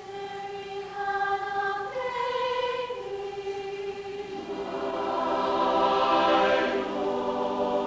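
A choir singing long held notes, at first a single line that moves to a new pitch about once a second, then swelling into a fuller, louder chord from about halfway.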